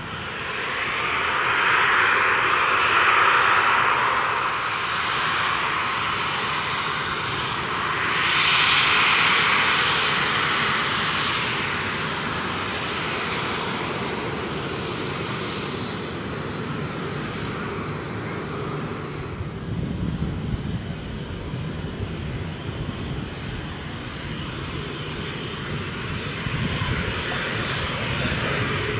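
Fixed-wing aircraft engine noise: a continuous rushing sound that swells twice in the first ten seconds, then settles into a lower, steady rumble.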